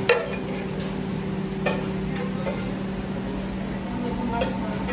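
Serving utensil scooping food into foam takeout containers, with a few sharp clicks of the utensil against the dishes, over the steady hum of commercial kitchen equipment.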